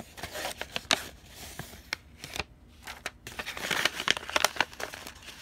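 Paper rustling and crinkling with small clicks and taps as a kraft-paper envelope of rubber stamps is handled and opened, with a short lull about two seconds in.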